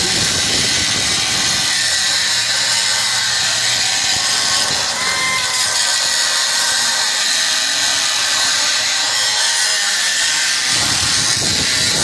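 Air-powered cut-off grinder running steadily under load, its wheel cutting through the steel hub of a condenser fan blade to free it from an old fan motor's shaft, with a constant high hissing grind.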